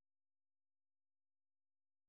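Silence: the soundtrack carries no audible sound.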